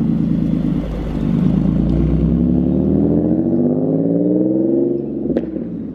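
Nissan 370Z's 3.7-litre V6 running through a freshly installed Motordyne Shockwave exhaust: steady at first, then the engine note climbs slowly for about three seconds and drops away near the end, with a single click shortly before it ends.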